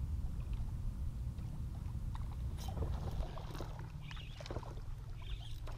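Open-water ambience from a kayak: a steady low wind rumble on the kayak-mounted action camera's microphone, with faint water sounds and a couple of light clicks as the angler fly-casts from the standing position.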